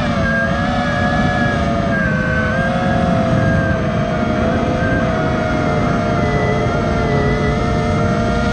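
Brushless motors and 5-inch propellers of a 6S FPV quadcopter (Lumenier ZIP 2407 1700Kv motors on DAL Cyclone 5040 props) whining at a fairly steady pitch that wavers a little during level cruise, heard from the camera on the quad, with wind rushing underneath.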